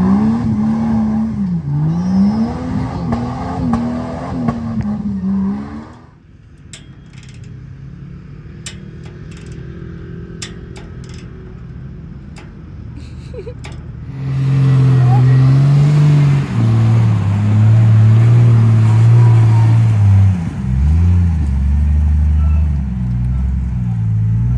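Lifted Jeep Cherokee's engine revving and running under load as it crawls up rocky ledges off-road. About six seconds in it gives way to a quieter stretch with a few sharp clicks. At about 14 s a loud engine starts up again, its pitch rising and falling as the throttle works the rocks.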